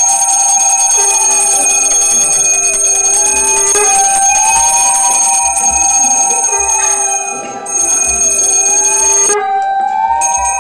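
A bell ringing on and on, with overlapping tones that slowly swell and bend up and down in pitch. The sound cuts off sharply about nine seconds in and starts again at once.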